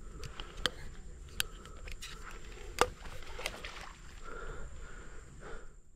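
Leaves and branches rustling as someone shifts about in a tree, with several sharp clicks, the loudest about three seconds in. A steady high insect drone runs underneath.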